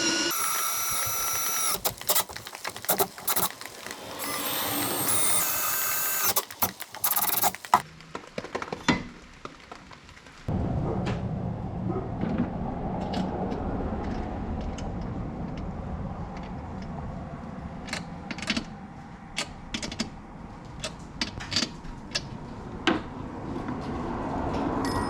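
Power drill whining in short bursts, its pitch stepping up and down, with sharp clicks and knocks of hardware being worked. About ten seconds in it gives way suddenly to a steady low rumble with occasional clicks and taps.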